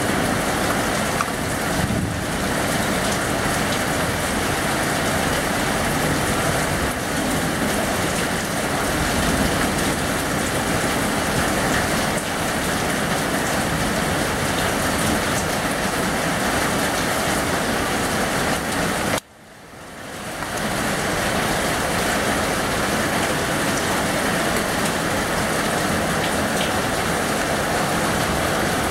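Steady rain falling on a paved courtyard and its plants, an even hiss. About two-thirds of the way through the sound cuts out suddenly and fades back in over a second or so.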